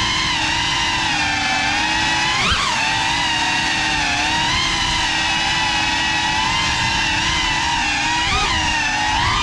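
FPV quadcopter drone's brushless motors and propellers whining, the pitch wavering with the throttle, with two quick surges up and back down: one about two and a half seconds in and one near the end.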